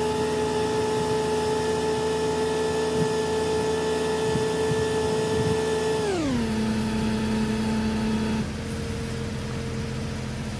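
Engine-driven onboard air compressor, a converted automotive AC compressor, running steadily with a whine while it fills a large tire, the engine held at about 1500 RPM. About six seconds in the pitch slides down to roughly half and holds there, and near the end that tone stops and the sound drops a little.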